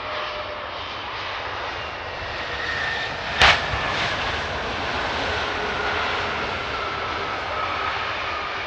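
Airbus A320 jet landing, its engine noise steady with a faint whine, and a single sharp bang about three and a half seconds in: a main-gear tire bursting on touchdown.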